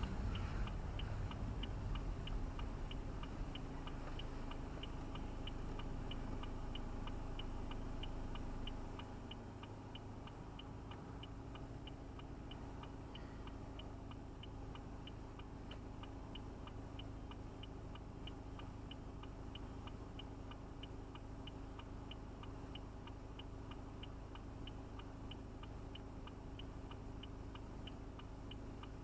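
Car turn-signal indicator ticking steadily, about two to three clicks a second, over a low hum of the car's engine and road noise that quietens about eight seconds in.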